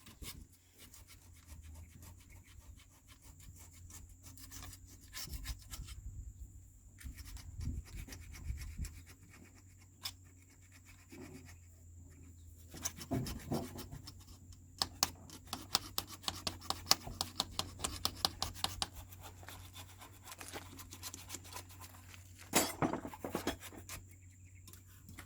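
Metal hand tools scraping, rubbing and clicking against excavator parts as a seal housing is probed and cleaned out, with a quick run of sharp clicks about two-thirds of the way through.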